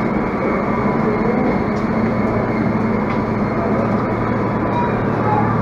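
Stationary diesel commuter railcar (KRD) idling at the platform: a steady low engine drone with a constant hum.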